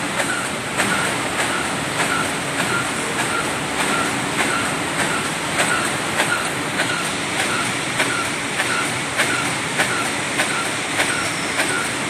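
A CD 1600 double-line hamburger box erecting machine running: a steady mechanical clatter with a sharp clack repeating evenly, a little under twice a second, as it forms each box.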